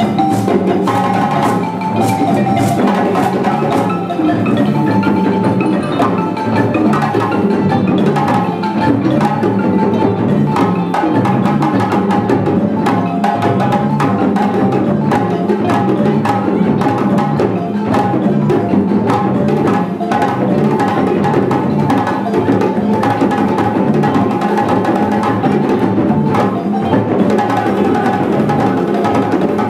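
Live West African band music: a balafon playing a repeating, bright melodic pattern over djembe drumming and an electric bass line, in a steady, driving dance rhythm.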